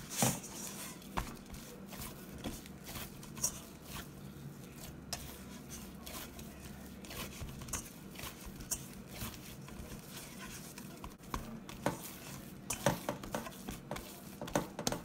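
Naan dough being kneaded by hand in a stainless steel bowl: soft pressing and squishing of the dough with irregular knocks and taps of the metal bowl, more of them near the end.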